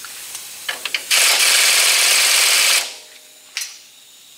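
Pneumatic air ratchet running for about a second and a half, tightening a bolt on a disc-brake caliper bracket. A few clicks of the tool come before it and one more after.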